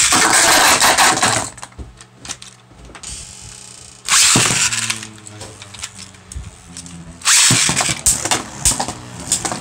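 Beyblade Burst launcher pulled three times, each launch a loud whirring zip, with the spinning tops humming and clicking against each other and the plastic stadium in between.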